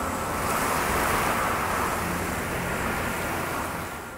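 Wind rushing through pine trees, a steady hiss that swells about a second in and fades away near the end.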